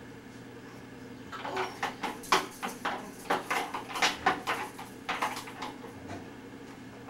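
Irregular clacking and knocking of toys against a baby walker's plastic tray as the baby plays with them, starting about a second in and stopping near the end, over a steady low hum.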